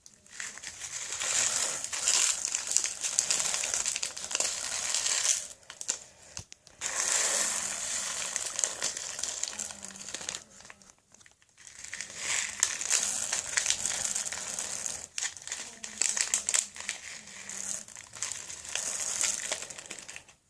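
Slime with beads mixed in, squeezed and kneaded by hand, making crunchy crackling in long stretches broken by short pauses.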